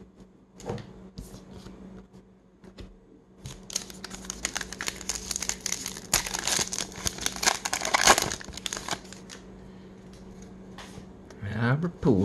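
Foil wrapper of a 2021 Topps Heritage baseball card pack being torn open and crinkled by hand. A few light rustles come first, then a dense crackle from about three and a half seconds in to about nine seconds, loudest near the middle, then it fades to soft rustling.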